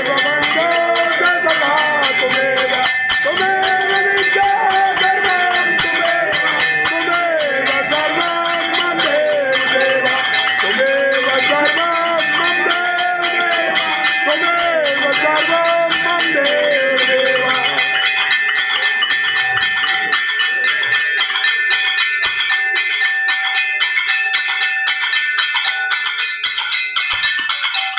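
Aarti being sung over temple bells rung in rapid, even strokes, their ringing tones held throughout. The singing stops about two-thirds of the way through, leaving the bells ringing on their own.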